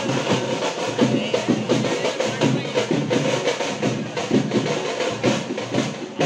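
Festival drums beating a fast, steady rhythm, with crowd voices underneath.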